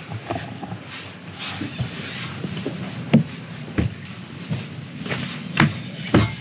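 A handful of sharp knocks and thumps of someone climbing out of a small boat's cabin onto the back deck, over a steady background hiss.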